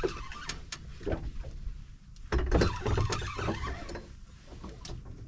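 Low rumbling wind and water noise on an open boat at sea, with scattered clicks and knocks of gear being handled, loudest about halfway through.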